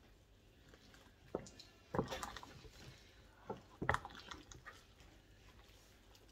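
Faint cooking sounds: a handful of scattered knocks and clinks, with liquid sounds from the pot.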